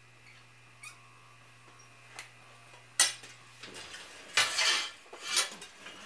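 Steel glassworking tools clinking and clattering against metal: a few light clicks, a sharp clink about three seconds in, then louder scraping clatter in the second half. A faint steady hum stops shortly before the clatter grows.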